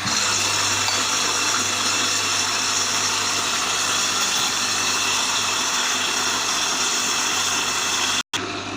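Electric mixer running steadily, beating cake batter, with a brief dropout near the end.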